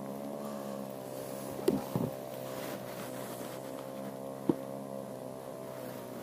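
A boat motor running steadily with an even hum. A few short knocks about two seconds in and one sharp click near the middle come from handling the caught fish.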